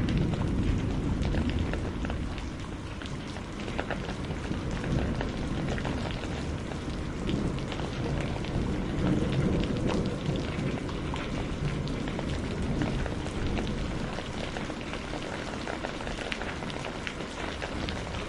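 Heavy rain pouring steadily, with many small drop impacts pattering through it. A deep thunder rumble underneath is loudest at the start and eases off after about two seconds.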